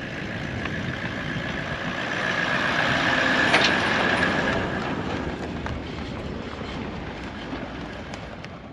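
A Toyota LandCruiser 79 series towing a caravan drives past on a dirt track: the engine and tyre noise builds as it approaches, is loudest as it passes about three and a half seconds in, then fades as it pulls away.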